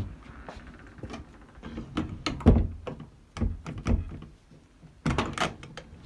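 A wooden front door being pushed shut several times, knocking against the frame as the Yale nightlatch's latch bolt meets a misaligned keep and does not click into place. The knocks come singly, the loudest about two and a half seconds in, with a quick cluster about five seconds in.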